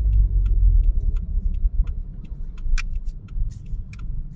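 Car's turn-signal indicator ticking evenly about three times a second as the car turns left, over the low rumble of the engine and tyres inside the cabin; the rumble is heavier for the first two seconds.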